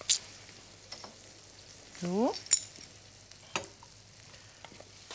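Small potatoes being caramelized in a frying pan: a faint sizzle as a wooden spoon stirs and scrapes them, with a few sharp knocks.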